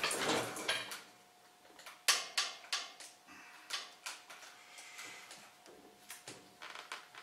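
A few light, irregular clinks and knocks of metal and stone as a heavy rock slung from a Hoyer lift is lowered and guided into a rock saw.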